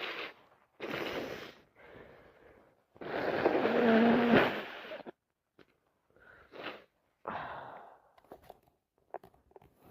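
A person with a head cold taking a few short breaths, then blowing the nose hard for about two seconds, loudest near the end of the blow with a brief honking tone. Softer short sniffs and breaths follow.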